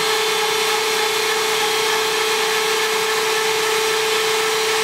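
Power drill running steadily at constant speed with a steady whine, a Milwaukee Shockwave Red Helix bit drilling under added weight in a durability-to-failure test. The bit is holding up without stalling.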